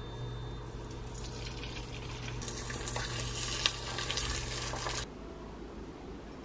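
Egg whites sizzling in a hot nonstick frying pan. The sizzle builds to a loud hiss, has one sharp click partway through, and cuts off suddenly about five seconds in.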